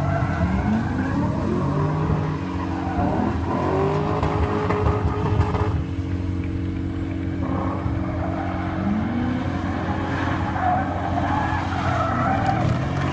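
A car's engine revving hard, its note rising and falling again and again, while its tyres skid as it drifts through the course.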